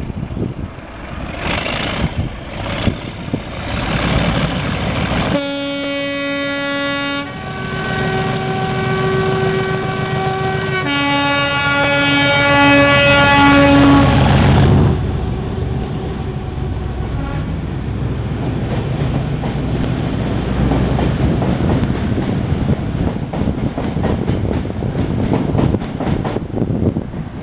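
Class 37 diesel-electric locomotive departing. Its two-tone horn sounds from about five seconds in: a low note, then a longer high note, then the low note again in short broken blasts. The English Electric V12 engine works hard as the train pulls away, loudest around the end of the horn, then settles into a steady rumble.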